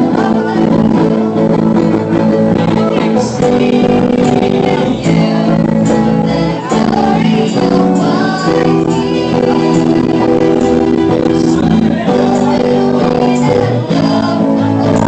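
Live worship band music: electric guitar with several voices singing, including girls singing into microphones.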